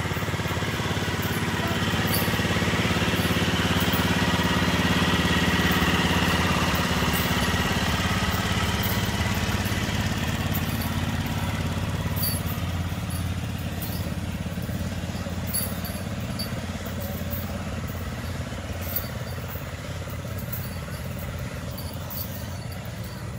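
A motor vehicle's engine running steadily at low revs, swelling a little over the first few seconds and then slowly fading.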